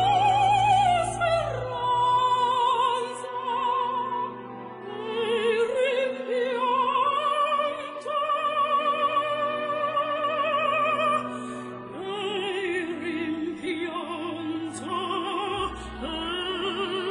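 Operatic singing with strong vibrato over classical music: long held notes, each lasting a few seconds, moving from one pitch to the next.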